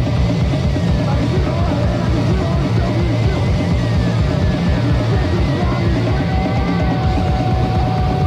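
Punk rock played by a full band: a drum kit keeping a steady, driving beat under bass and electric guitar, recorded on a demo cassette.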